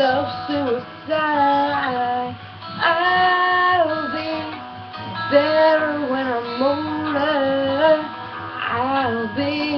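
A young woman's voice singing a slow pop ballad in long held notes that slide in pitch, with guitar accompaniment underneath.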